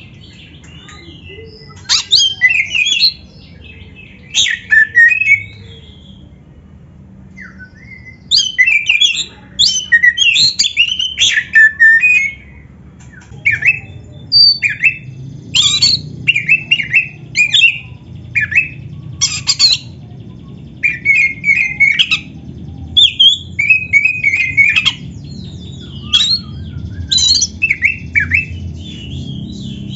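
Oriental magpie-robin (kacer) singing loud, varied phrases of quick whistles mixed with harsh scratchy notes, coming in clusters separated by short pauses. A faint low hum sits underneath.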